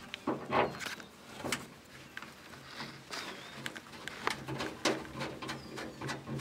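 Steel threaded rod being turned by hand into a rivet nut in a pickup bed wall: irregular small metallic clicks and scrapes as the threads catch.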